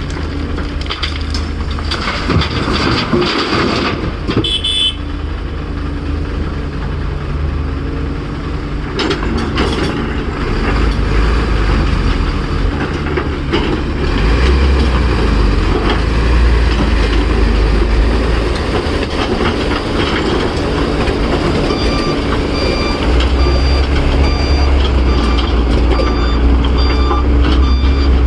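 Heavy diesel engines of a Caterpillar 336 excavator and a dump truck running, the low rumble swelling as the machines work under load. Over the last several seconds a reversing alarm beeps steadily.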